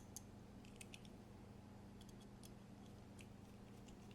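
Near silence with faint, scattered small clicks from a T10 Torx driver bit and body screw being worked into a Medford folding knife's handle, over a low steady hum.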